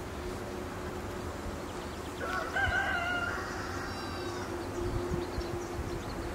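A rooster crows once, starting about two seconds in and lasting a little over a second, over a steady low hum.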